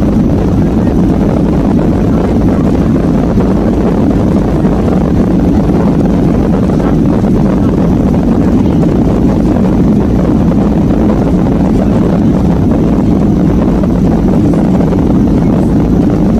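Cabin noise of a Boeing 737-800 on the runway heard from a window seat: the CFM56 jet engines run with a loud, steady, low roar mixed with the rumble of the airliner rolling on the runway.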